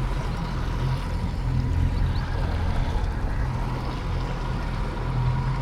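A small boat's outboard motor running steadily under way, a low even drone over a haze of water and wind noise.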